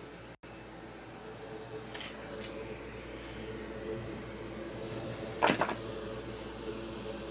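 Steady hum of a bench fan, with two faint clicks about two seconds in and a sharper knock about five and a half seconds in.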